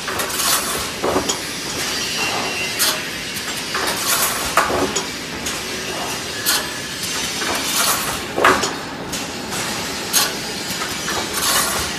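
Automatic wire mesh panel welding machine running: sharp metallic clanks and clicks at irregular intervals over a steady hiss as the wire grids are fed and welded.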